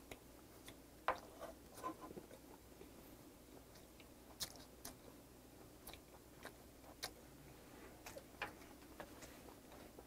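Faint mouth noises of chewing: scattered soft, wet clicks and smacks at an uneven pace as a mouthful of soy-marinated raw salmon and rice is chewed.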